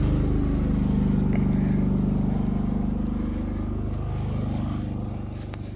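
Small 120-volt portable generator's engine running steadily with a low hum, growing fainter over the last couple of seconds.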